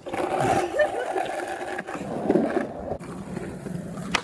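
Skateboard wheels rolling over asphalt in a steady rumble, ending with one sharp clack as the board's tail is popped for a trick.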